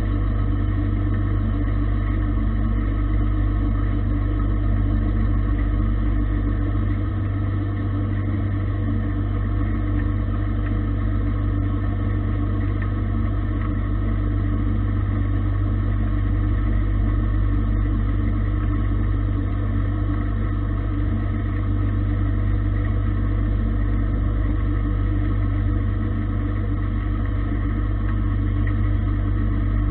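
Gildemeister CTX 400 S2 CNC lathe running, its spindle turning a metal bar while the tool cuts: a steady machine hum with several fixed tones over a low rumble.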